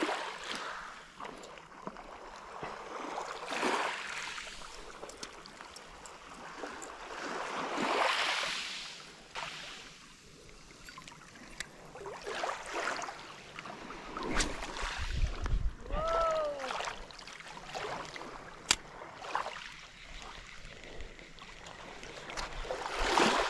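Sea waves washing against a rocky shore, swelling and falling back every few seconds. About two-thirds of the way in comes a short pitched tone that rises and falls.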